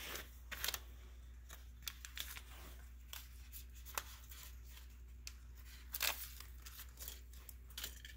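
Paper-backed Lego sticker sheet being handled and a sticker peeled off its backing: quiet crinkling and peeling rustles with scattered small clicks.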